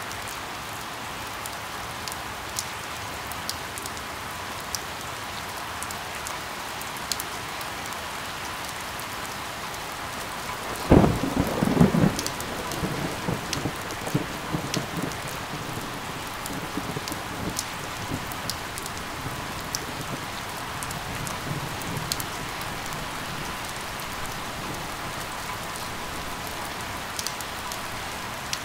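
Steady rain with scattered drops ticking close by. About eleven seconds in, a sharp thunderclap breaks and rolls off in a rumble over several seconds, with a fainter rumble later on.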